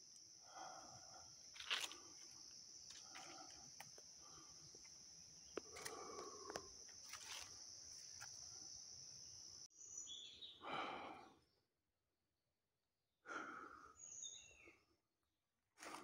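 Quiet tropical forest ambience: a steady high-pitched insect drone for the first ten seconds, with scattered short bird calls and rustles. After that the sound changes abruptly, and short calls alternate with two stretches of dead silence.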